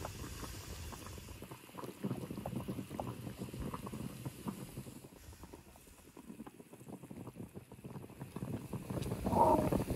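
Water at a rolling boil in an iron wok, blanching a slab of pork belly, bubbling and popping steadily. It dips quieter for a couple of seconds midway and swells again near the end.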